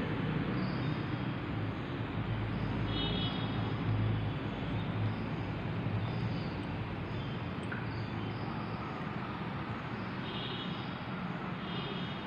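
Steady low background rumble with a few faint high chirps now and then.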